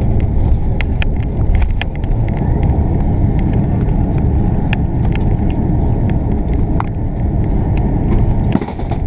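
Loud, steady cabin rumble of an Airbus A340-600 rolling out on the runway after touchdown, with frequent rattling clicks from the cabin fittings and a short hiss near the end.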